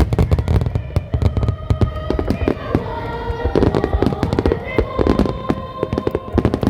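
Aerial fireworks going off in a dense barrage: many sharp bangs and crackles in quick succession over a low rumble. Music with held notes plays underneath.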